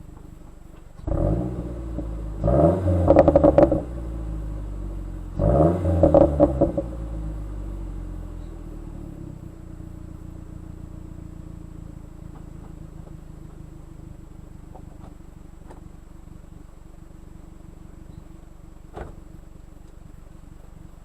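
2010 Mazdaspeed3's turbocharged 2.3-litre four-cylinder, through an Xforce turbo-back exhaust, idling, then blipped about a second in and revved twice, popping and crackling as each rev falls, as its Versatune tune is set to do on overrun. It then settles back to a steady idle.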